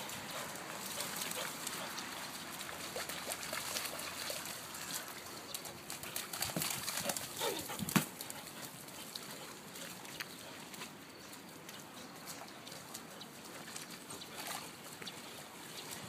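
Dogs splashing and padding through a large, shallow muddy rain puddle, paws slapping and sloshing water in a continuous patter of small splashes, with one sharp knock about halfway through.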